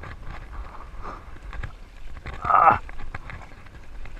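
Wind buffeting the microphone and choppy water slapping against an inflatable tender, with small knocks throughout. A short loud burst about two and a half seconds in, dropping in pitch as it fades.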